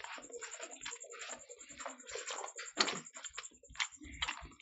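Eating by hand: fingers squishing and mixing rice and picking apart whole fried fish on trays, with soft wet clicks, smacks and chewing. A sharper click comes about three seconds in.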